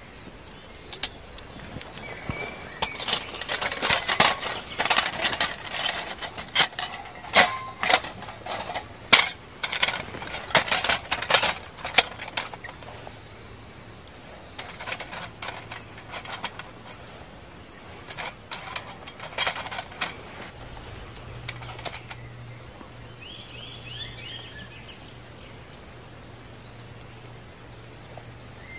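Sharp metal clinks and knocks of a folding steel camp stove being put together, its panels and rods slotted into place: a dense run of clicks for several seconds, then a few more scattered ones. A bird chirps a few times near the end.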